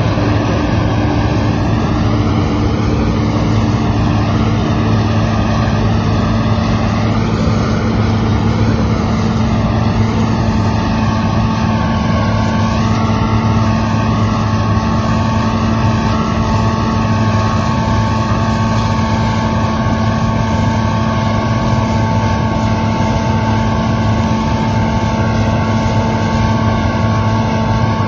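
Claas Lexion combine harvester running steadily while harvesting soybeans, a loud, even engine drone. A higher steady whine joins about eleven seconds in.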